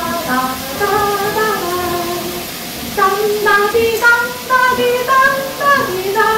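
Light, bouncy background music with a high sung melody line.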